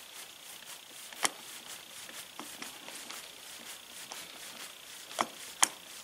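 A screwdriver working screws into the metal body of an updraft carburetor: light scattered metallic clicks and ticks, with a sharper click a little over a second in and two more near the end.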